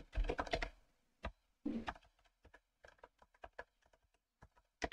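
Typing on a computer keyboard: a quick run of keystrokes at the start, another short burst about two seconds in, then scattered single key presses.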